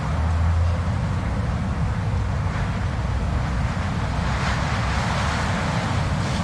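Blizzard wind blowing hard and steadily, with a deep rumble underneath and a hissing gust that swells about four seconds in.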